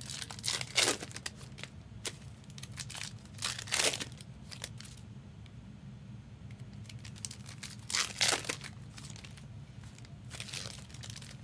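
Silver foil wrappers of Topps Chrome trading-card packs crinkling and tearing as packs are handled and ripped open, in several short bursts.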